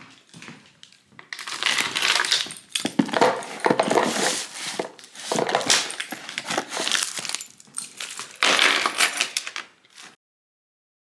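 Small hard objects clattering and jingling in dense, irregular rattles, stopping abruptly about ten seconds in.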